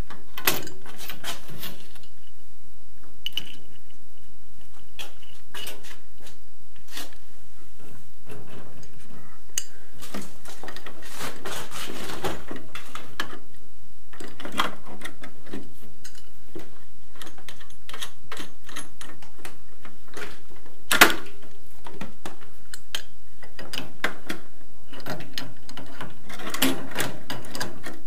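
Hand tools and plumbing fittings being handled: an adjustable wrench clicking and knocking against brass boiler fittings, with irregular metallic taps and one sharper knock about three quarters of the way through.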